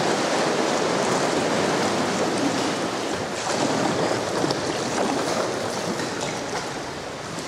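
Sea water sloshing and lapping against the rock walls inside a sea cave as a sea kayak moves through it: a steady wash of water noise.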